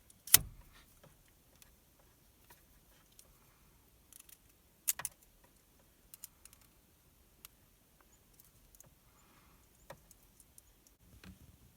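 Scattered small clicks and light rattles of wire and crimp connectors being handled during wiring work, with a sharp click about a third of a second in and another about five seconds in.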